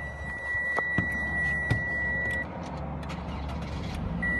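Car's electronic warning chime: a steady high beep held for about two and a half seconds that cuts off, then a second short beep near the end. A steady low engine rumble runs underneath, with two faint clicks a second or so in.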